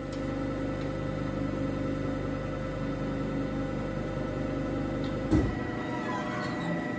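Amada APX 103 CNC hydraulic press brake running with a steady hum, and a single thump about five seconds in.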